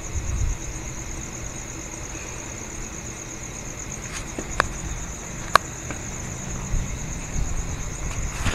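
Crickets chirping in a steady high trill over a low background rumble. Two sharp clicks come about halfway through.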